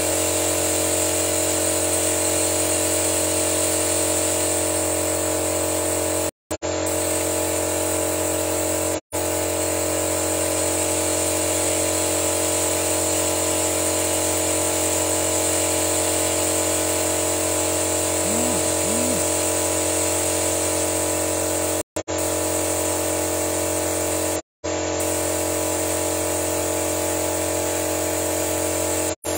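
A car engine running steadily, the Suzuki Splash's engine kept running during an engine-decarbonising flush, a constant hum with a high whine. It drops briefly to silence five times.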